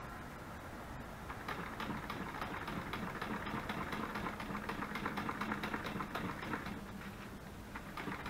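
A small flat paintbrush scrubbing Mod Podge over a thin paper napkin laid on cardstock: quick scratchy strokes that start about a second in and die away near the end.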